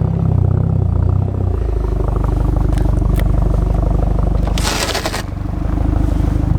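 Car engine running steadily under load as a Hyundai Genesis is driven through deep snow, with a short loud hiss about two-thirds through.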